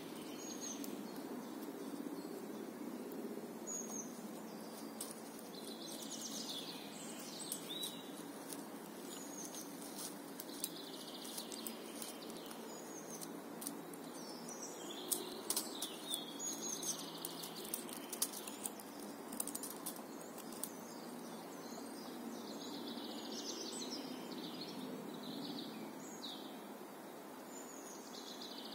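Small songbirds singing short, repeated chirping phrases over a steady low background hum, with a cluster of sharp ticks and snaps about halfway through from a knife cutting into a wooden stick.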